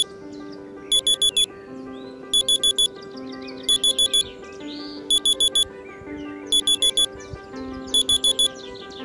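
Digital alarm beeping in groups of four quick high beeps, the groups repeating about every second and a half, over soft background music with short chirps.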